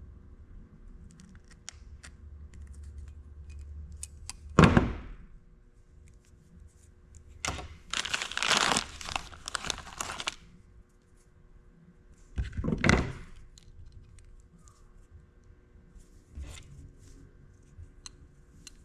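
Handling noise from working with small materials: one sharp knock about four and a half seconds in, then a few seconds of crinkling and tearing, and another short rustle near thirteen seconds, with scattered small ticks.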